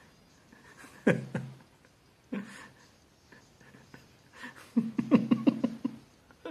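A man laughing: a short burst about a second in, another just after two seconds, then a run of rapid 'ha-ha-ha' pulses near the end.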